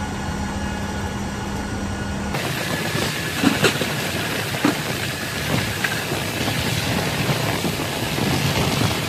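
A steady hum as tie-down chains are handled in a C-5M Super Galaxy's cargo hold. It gives way abruptly to a steady rushing mechanical noise, with a few sharp metallic clanks, as the aircraft's forward cargo ramp is raised.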